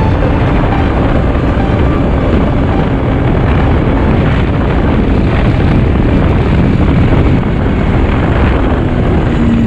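2009 Yamaha Vector snowmobile's four-stroke three-cylinder engine running at trail speed, heard as a loud, steady rush with wind on the handlebar-mounted microphone.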